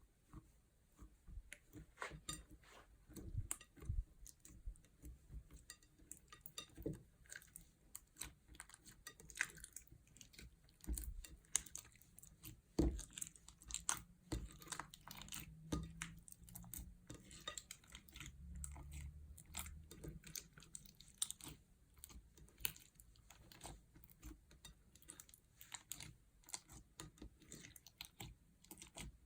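Slime being kneaded and squished by hand: a steady stream of small wet clicks, crackles and pops, with an occasional soft knock.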